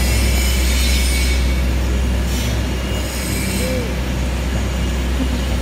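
Steady low hum of a steel fabrication shop, with two stretches of high metallic scraping and squealing, each about a second long, in the first half.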